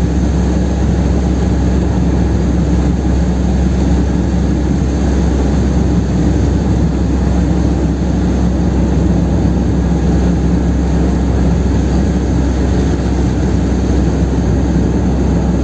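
Chevrolet Kadett 1.8's four-cylinder engine pulling under full throttle at highway speed, a loud, steady drone at constant revs.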